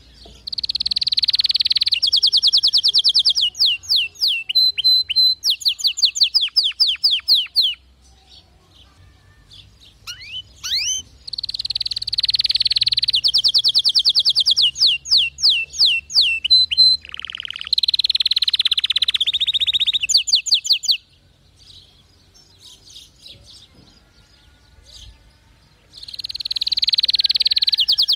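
Domestic canary singing: three long song phrases of rapid trills and quickly repeated notes, with pauses of a few seconds between them.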